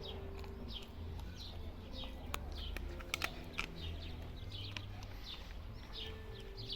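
Small birds chirping repeatedly, short falling chirps about one or two a second, over a steady low hum. A few sharp clicks come about two and a half to three and a half seconds in.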